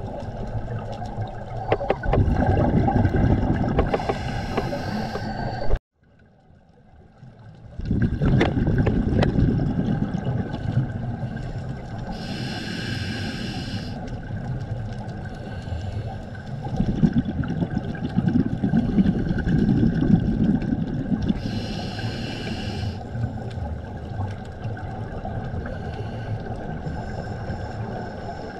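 Scuba diver's regulator breathing heard underwater: three long hissing inhalations, with rushes of gurgling exhaled bubbles between them. The sound drops out for about two seconds near six seconds in.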